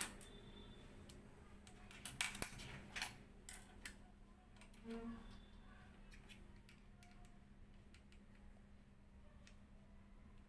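A few sharp clicks and small metal taps, bunched around two to three and a half seconds in, as the presser foot of a Jack industrial sewing machine is changed by hand; otherwise near silence with a faint steady hum.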